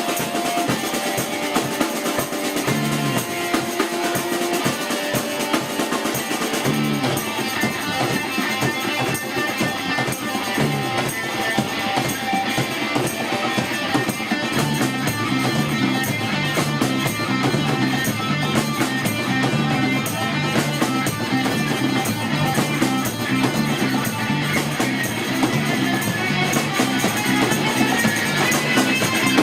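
Rock band playing live, an instrumental passage of guitar, bass and drum kit with no singing.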